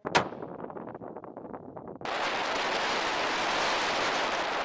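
A single shot from a muzzle-braked sniper rifle: a sharp crack followed by a rolling echo that dies away over about two seconds. About two seconds in, a steady loud rushing noise like wind on the microphone takes over.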